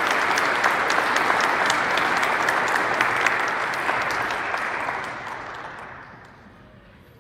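Congregation applauding, a dense patter of many hands clapping that dies away about five to six seconds in.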